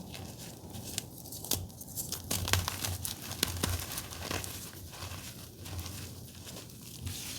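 Reformed blue gym chalk being crushed, giving crisp, irregular crunching and crackling snaps.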